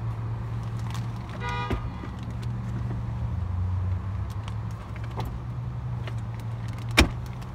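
A car engine idling steadily, heard from inside the cabin as a low, even hum. There are light handling clicks, and one sharp click near the end.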